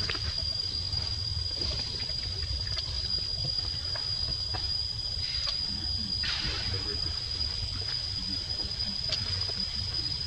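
Outdoor forest ambience: a steady high-pitched whine over a low rumble, with a few faint clicks and a brief rustle about six seconds in.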